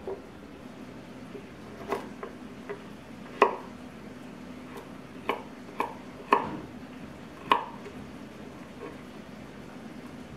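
Chef's knife chopping carrots on a wooden cutting board: several sharp, irregular knocks of the blade hitting the board, spaced about half a second to a second apart, thinning out near the end.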